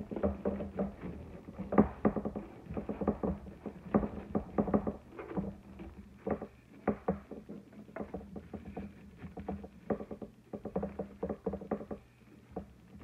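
Wired fabric ribbon rustling and crinkling as hands shape the loops of a bow, a string of short, irregular crackles.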